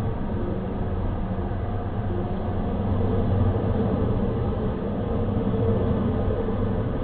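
Steady low rumble of a vehicle, with no distinct bell, horn or clacks.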